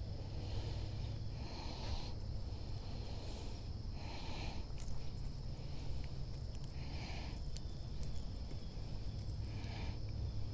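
A person breathing close to the microphone, slow nose breaths every couple of seconds, over a steady low rumble and a faint high insect drone.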